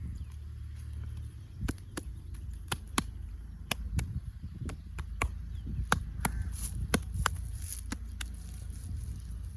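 Hands striking the head and shoulders in a traditional massage: irregular sharp slaps and taps, about one or two a second, over a steady low rumble.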